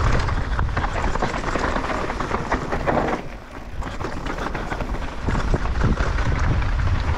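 Mountain bike riding down a dry, dusty dirt trail: wind buffeting the helmet camera's microphone over tyres crunching and the bike rattling on loose rock and ruts.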